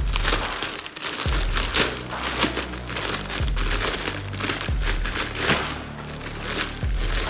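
Clear plastic packaging bag crinkling and rustling in irregular bursts as it is pulled open around a plastic toy vest, with background music underneath.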